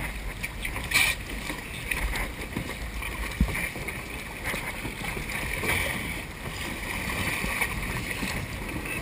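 Choppy water sloshing and slapping against the side of a boat lying still, with a few short knocks, one about a second in and a sharper one near three and a half seconds.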